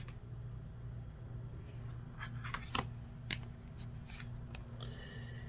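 Oracle cards being handled: a card laid down on the pile and the next one slid off the deck, with a few soft clicks and rustles of card stock between two and three seconds in.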